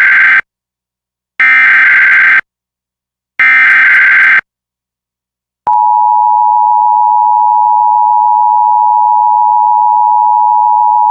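Emergency Alert System SAME header: the end of one burst and then two more bursts of digital data tones, each about a second long with a second's gap, encoding the Required Monthly Test's originator, areas and times. About a second and a half after the last burst, the steady two-tone EAS attention signal starts and holds on.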